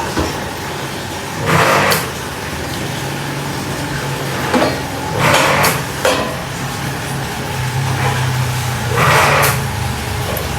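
A motor hums steadily, broken by three short hissing bursts about a second and a half in, near the middle, and about nine seconds in.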